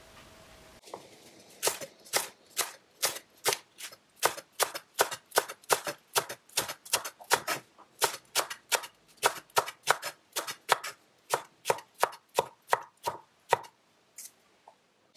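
Chef's knife finely chopping leek on a wooden cutting board: a steady run of knocks, about two to three a second, starting after a short pause and stopping a little before the end.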